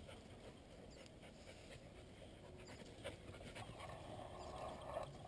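Young coonhounds panting faintly in the heat as they sniff out a scent trail, with a few light clicks.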